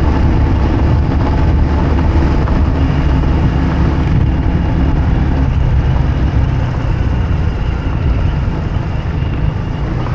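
Steady low engine drone and road noise of a vehicle driving along a street, heard from the moving vehicle itself. It eases slightly near the end.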